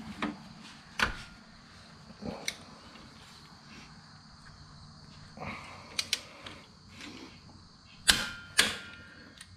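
Scattered metal clicks and clinks of a torque wrench and socket being worked on a compact tractor's front frame bolts, with two sharper, ringing clicks about half a second apart near the end.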